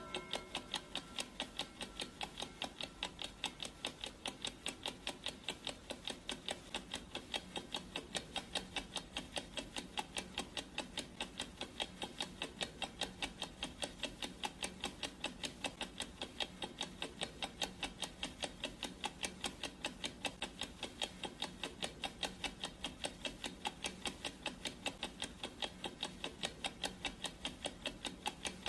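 Clock ticking sound effect: quick, even ticks, several a second, with no change in pace.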